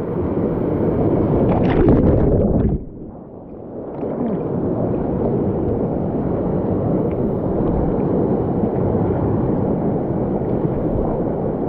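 Rushing water of a mountain canyon stream, a steady churning noise. About two seconds in comes a burst of louder splashing, followed by about a second of duller, quieter sound before the steady rush returns.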